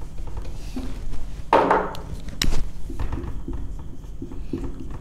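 Handling at a whiteboard: a short burst of rustling noise about a second and a half in, then a sharp click, then the faint scratch of a marker writing on the board, over a steady low hum.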